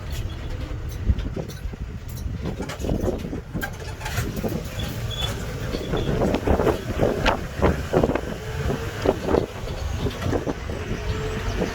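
Vehicle on the move: a steady low rumble with many irregular knocks and rattles.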